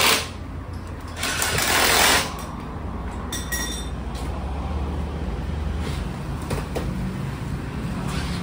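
Pneumatic impact wrench rattling in one burst of about a second on a wheel's lug nuts, followed by a steady low hum and a few light metallic clinks.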